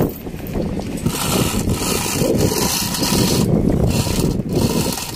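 A fishing boat's engine running, with water and gear noise along the hull.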